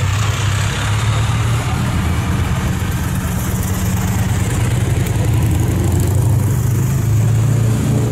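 A motor vehicle's engine running steadily close by, a continuous low hum.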